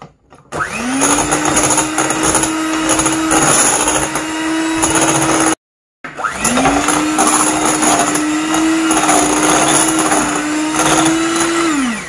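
Electric hand mixer running, its beaters whisking an egg into creamed butter and sugar in a glass bowl. The motor spins up with a rising whine about half a second in and runs steadily. It cuts off abruptly near the middle, then spins up again and runs until just before the end.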